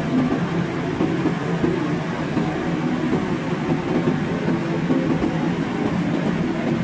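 Paint booth ventilation fans running: a steady, even rumble.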